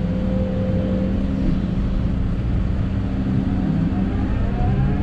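Hidromek 220 LC excavator's diesel engine running steadily under load, heard from inside the cab, as the hydraulics dig and lift a bucket of earth. A faint whine rises in pitch near the end.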